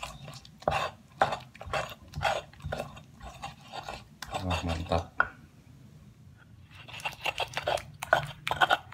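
Stone pestle grinding wet chili-and-tomato sambal paste in a stone mortar (cobek and ulekan): stone clacking and scraping on stone, about three strokes a second, pausing briefly after about four seconds and starting again near the end.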